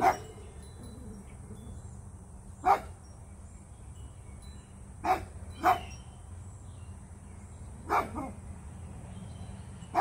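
A dog barking in single short barks every two to three seconds, about five in all, two of them close together near the middle.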